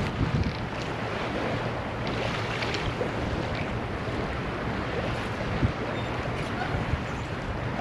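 Wind on the microphone and water rushing past the hull of a Catalina 36 sailboat under sail, a steady noise with gusty low rumble.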